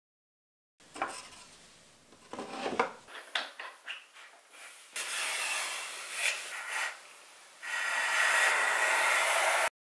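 Wooden knocks and clicks as a board is set and clamped on a wooden workbench, then two long hand-plane strokes shaving along the board, each a steady rasping hiss about two seconds long.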